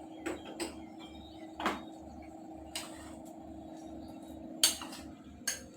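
A few scattered knocks and clinks of kitchen utensils and pans being handled, the loudest about two-thirds of the way in, over a steady low hum.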